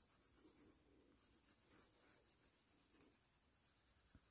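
Crayon scribbling on paper: faint, rapid, even back-and-forth shading strokes, with a brief pause about a second in.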